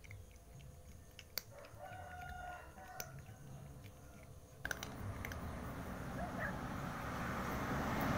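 A rooster crows once, for about a second and a half, over a cat crunching dry kibble, with a few sharp clicks. About halfway through, a rushing noise comes in and grows louder toward the end.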